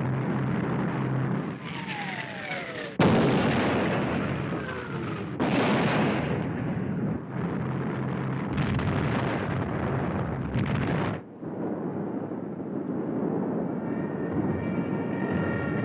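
Air-raid sound effects on an old film soundtrack: bombs whistling down in falling tones, and explosions over a heavy rumble, cut together in abrupt blocks. About eleven seconds in the din drops to a steadier rumble.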